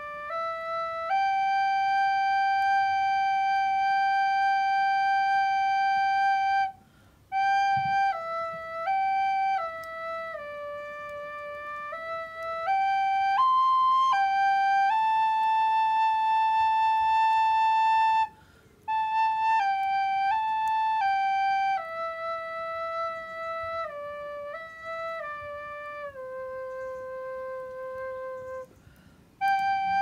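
Recorder playing a slow melody of long held notes that step up and down, with three short breaks.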